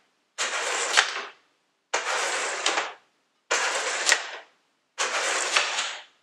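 Wooden sjoel discs slid one after another down a wooden sjoelbak board: four rumbling slides of about a second each, spaced about one and a half seconds apart, each ending in a sharp clack as the disc hits the gates or the discs already there.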